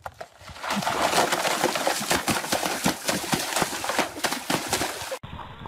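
A man diving onto a shallow, muddy creek bed and sliding through the water: a long run of crackling, scraping and splashing with many sharp clicks, cut off suddenly near the end.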